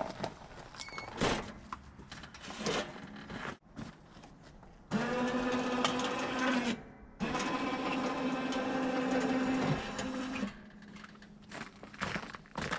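Scattered knocks and handling noises, then a small electric motor runs twice with a steady whine, about two seconds and then about three seconds, with a short stop between.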